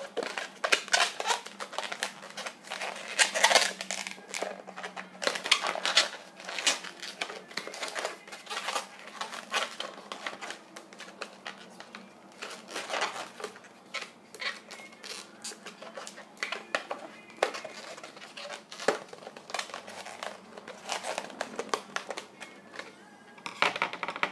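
A long latex modelling balloon being twisted and folded by hand: an irregular run of rubbery squeaks and rubbing from the balloon skin.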